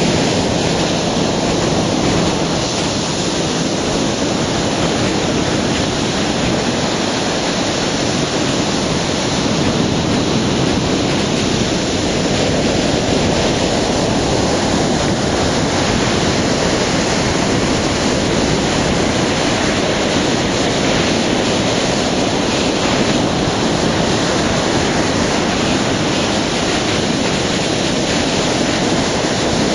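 Ocean surf: waves breaking and washing up the beach, a steady rushing noise without let-up.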